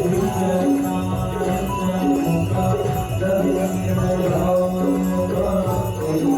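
Aarti hymn: devotional singing over music, with jingling bells.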